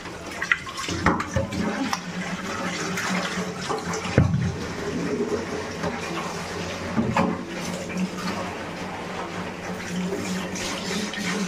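Tap water running and splashing over a clay water pot (gagri) as it is washed and rubbed by hand in a sink, with a few sharp knocks.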